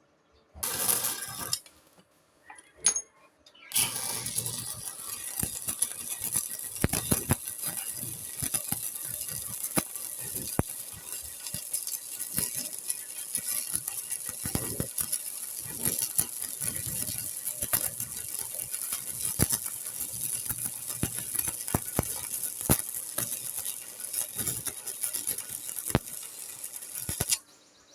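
Electric arc welding: a brief arc strike near the start, then a long, steady crackling, sizzling arc that cuts off sharply near the end.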